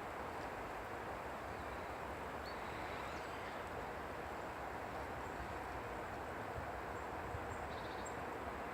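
Wind rushing steadily through pine trees, with a few faint bird chirps high above it and a short trill near the end.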